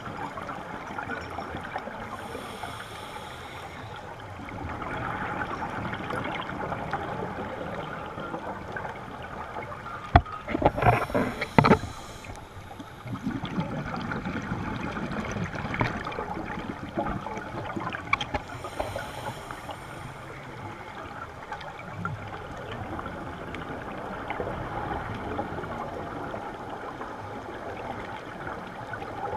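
Underwater ambience on a scuba dive: a steady hiss and crackle of the water, with gushes of scuba regulator exhaust bubbles every several seconds. The loudest gush, about ten seconds in, has sharp knocks in it.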